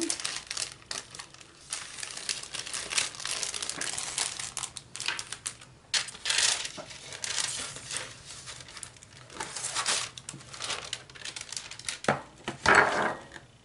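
Plastic packaging and paper crinkling and rustling in irregular bursts as hands handle card-making supplies, loudest near the end as a large sheet of cardstock is pulled out.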